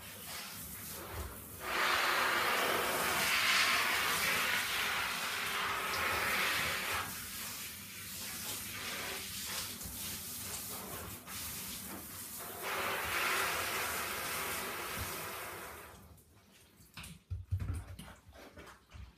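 Handheld shower head spraying water onto jeans and the shower floor, a steady rushing hiss that grows louder twice as the spray shifts. The water cuts off about three-quarters through, leaving a few scattered knocks and thumps.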